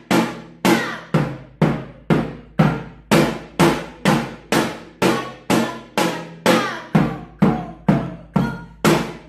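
Janggu, the Korean hourglass drum, struck steadily about twice a second in the basic drill: the bamboo chae stick on the right head (tta), both heads together (dong), and the bamboo-root gungchae on the thicker left head (kung). Each stroke rings briefly before the next.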